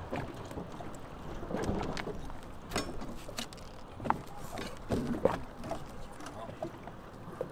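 Scattered knocks and clunks on a small boat over a steady background noise.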